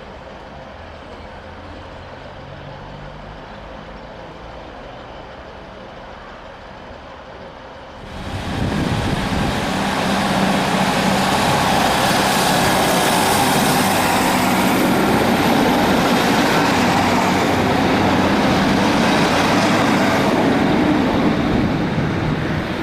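Class 156 diesel multiple unit, its underfloor Cummins diesel engines running quietly at the platform at first. About eight seconds in the sound jumps to loud engine and wheel noise as the unit powers away past the microphone, easing off near the end.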